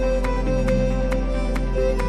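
Background music: a slow song's instrumental passage with held tones over a low bass and a soft steady beat of about two strokes a second.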